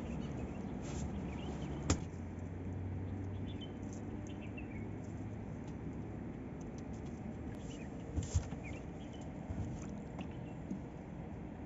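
Fishing net being handled and a fish worked out of its mesh, with faint rustling and scattered small clicks and knocks: a sharp click about two seconds in and two soft thumps about eight seconds in.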